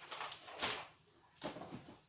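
Flat cardboard packing sheets scraping and rustling as they are pulled out of a cardboard shipping box, in two short bursts.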